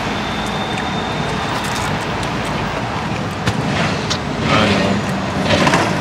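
Steady street traffic noise from cars passing. There are a few faint clicks, and two brief louder sounds about four and a half and five and a half seconds in.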